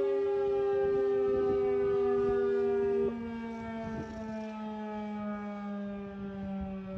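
Civil defense siren winding down, its pitch falling slowly. The loudest steady tone cuts off about three seconds in, and the sound gets quieter from there.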